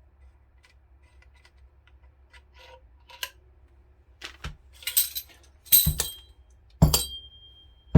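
Metal suppressor baffles being handled: faint small clicks, then a few sharp metallic clinks and knocks in the second half, the last one leaving a brief ringing tone.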